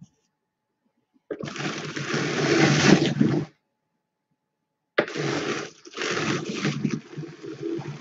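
Louet Classic hand-cranked drum carder turning, its toothed drums brushing through wool as fiber is fed in: a rushing noise in two spells, one starting about a second in and lasting about two seconds, the other starting about five seconds in.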